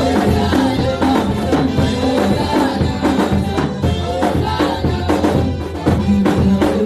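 Music with singing and a steady beat of drums and shakers or tambourine.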